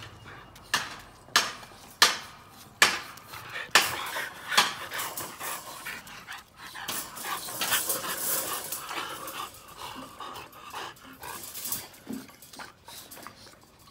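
Micro exotic bully dogs panting and scuffling in a wire pen. In the first few seconds come about six sharp knocks and rattles, one every half second or so.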